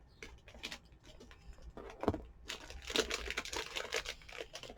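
A crinkly plastic candy wrapper being handled and torn open, with scattered light clicks at first and then a steady spell of crinkling through the second half.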